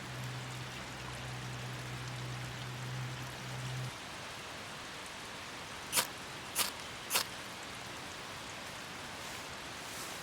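Steady hiss of light rain falling. A low steady hum stops about four seconds in, and three sharp clicks follow about six to seven seconds in.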